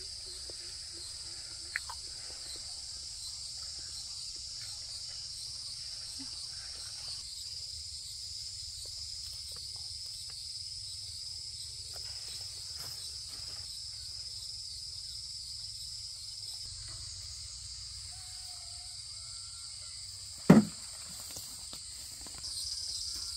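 Steady high-pitched insect chorus, crickets or cicadas. About twenty seconds in, one short, loud sound falls sharply in pitch.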